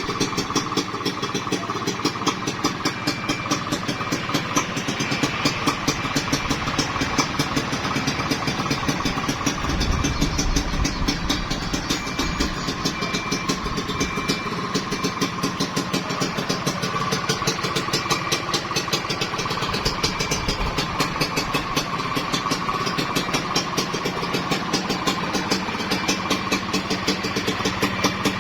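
A Kawasaki Ninja 150 KIPS single-cylinder two-stroke engine in a GasGas trail bike, idling steadily with a quick, even beat. It swells briefly about ten seconds in.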